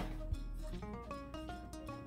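Background music: a light melody of quick single notes stepping up and then back down.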